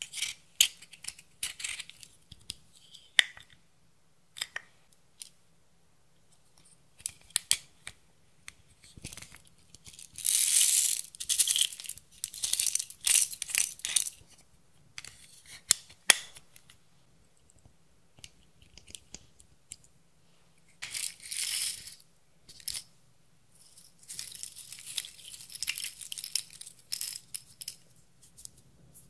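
Red pressed makeup being scraped and crumbled out of a compact with a metal pick and a plastic spatula. Scattered sharp clicks and taps on plastic and glass, then longer spells of dry, scratchy scraping: about a third of the way in, again about two-thirds through, and near the end.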